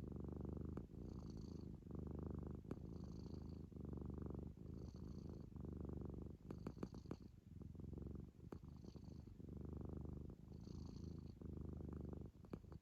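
Munchkin kitten snoring in its sleep: a low rumble on each in- and out-breath, about one breath every two seconds, with a faint high nasal whistle once per breath. A cluster of short snuffly snorts comes about halfway through.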